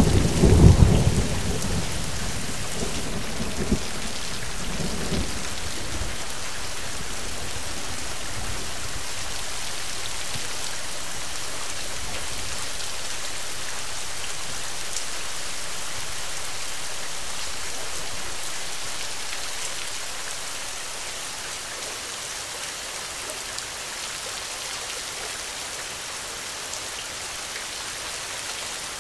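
Thunderstorm: a roll of thunder rumbles at the start and dies away over the first few seconds, leaving steady rain falling as an even hiss. The rain eases a little about twenty seconds in.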